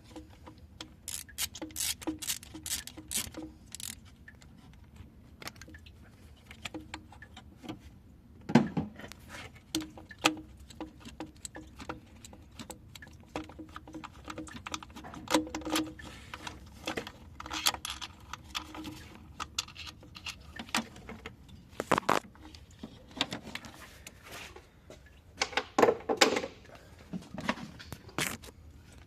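Metal hand tools and parts clicking and clinking during work on the engine. A run of regular clicks comes in the first few seconds, then scattered knocks and clinks, a few of them louder.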